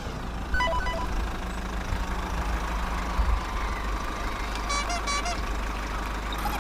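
Steady low vehicle-engine rumble, with two short bursts of electronic beeping, about half a second in and again near five seconds.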